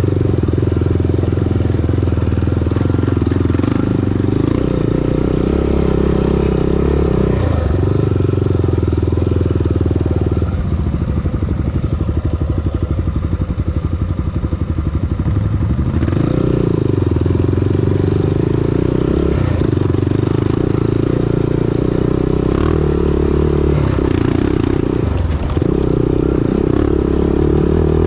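Honda TRX400EX ATV's air-cooled single-cylinder four-stroke engine running along a rocky trail, its note dipping briefly a few times. From about ten seconds in it falls to a low, pulsing putter for several seconds as the quad nearly stops, then picks up again as the ATV accelerates.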